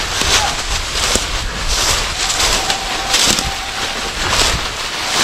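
Footsteps crunching through deep dry leaf litter, a crunchy step about every half second to a second.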